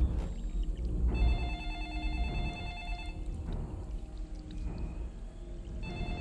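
A telephone ringing: one ring of about two seconds a second into the clip and the next starting near the end, over a steady low rumble.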